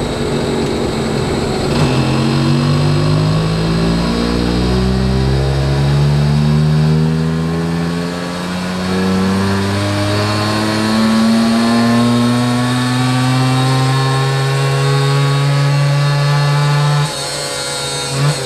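Yamaha FS1 moped's two-stroke rotary-valve engine with a 12.8 hp cylinder kit, making a dyno pull: the engine note climbs steadily in pitch under load, then cuts off suddenly near the end, followed by a short blip. The pull gives only about 3.5 hp at the rear wheel, with a power curve the tuner calls really ugly.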